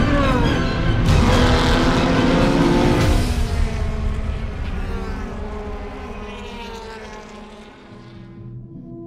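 DTM touring cars' V8 engines racing past, with a falling pitch just at the start; the sound stays loud for about three seconds, then fades away slowly.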